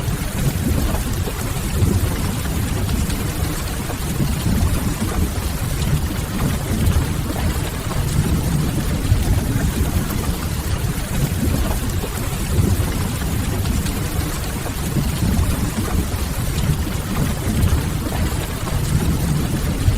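Steady rain with a strong low rumble underneath and the faint crackle of a wood fire.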